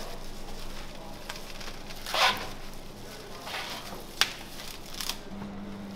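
Plastic cling film pulled off a dispenser and crinkling as it is wrapped around a cut of meat, with a sharp click about four seconds in. A low steady hum gets louder near the end.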